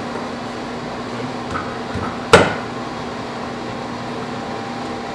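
A screwdriver worked against the stuck screw cap of a metal can of epoxy curing agent, giving one sharp knock a little over two seconds in. A steady hum runs underneath.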